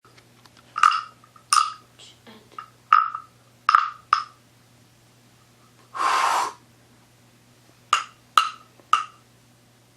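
A series of about nine sharp, knock-like clicks with a short ringing tone, in an uneven rhythm, and a half-second burst of hiss about six seconds in, over a steady low hum.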